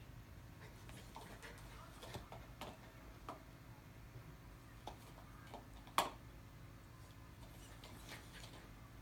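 Cairn terrier mouthing and chewing a plastic GoBone toy: scattered faint clicks of teeth on the hard plastic, with one sharp click about six seconds in.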